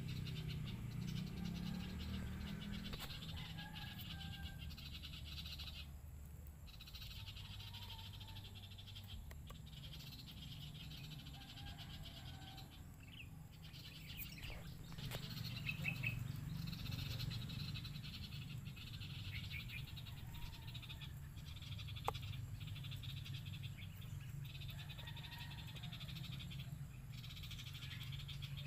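Faint outdoor chorus of calling frogs: a pulsing high trill that stops and starts every few seconds, with a few brief chirps and a low hum underneath.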